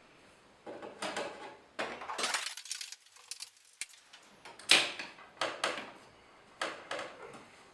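Clicks, scrapes and clinks of the hardware management console board being fitted back into an IBM IntelliStation POWER 285 workstation's chassis, with a sharp click about four and a half seconds in.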